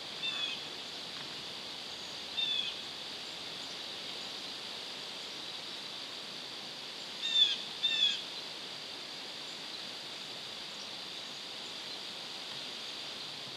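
Woods ambience: a steady high insect buzz, with a bird giving short calls four times, the loudest pair about seven and eight seconds in.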